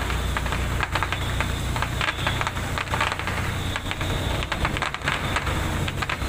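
Steady low drone of a ship's engine running, with irregular crackling and clicking over it.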